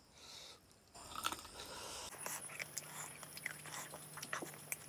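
Close-miked chewing of a mouthful of chicken curry and rice, starting about a second in, with many small, sharp, irregular mouth clicks.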